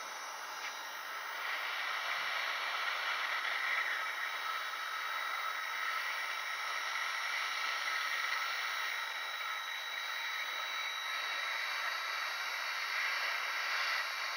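Hot air gun blowing a steady hiss of hot air onto the nVidia graphics chip of a Sony Vaio mainboard, a little louder from about two seconds in. The heat is reflowing the chip's BGA solder joints with no-clean flux, the usual cure for the faulty soldering behind a garbled screen.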